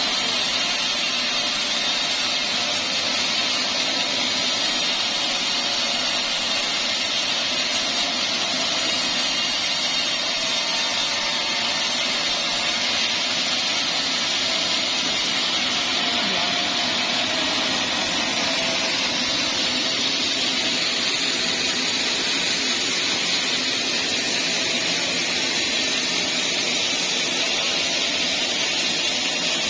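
Band sawmill running steadily, with a constant, even machine noise from its blade and motor.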